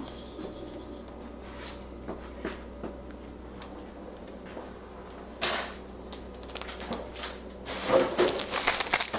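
Small packet of flower food crinkling and being torn open by hand, starting about three-quarters of the way in, after a few scattered light clicks and a short knock.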